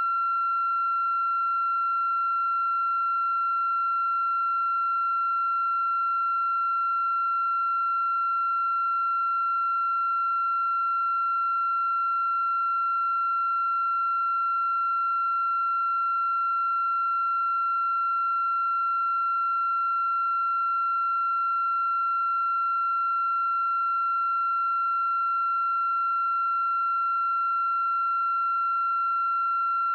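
A steady, high-pitched electronic tone held at one unchanging pitch, with fainter overtones.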